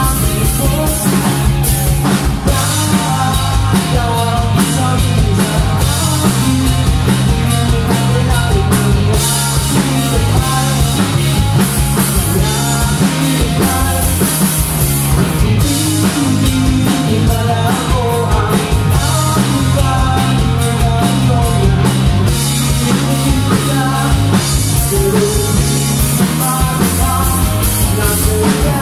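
Live rock band playing: drum kit, electric bass and two electric guitars, loud and continuous.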